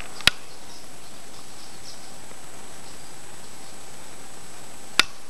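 Steady background hiss with a faint thin high whine, broken by two sharp clicks, one just after the start and one near the end, about five seconds apart.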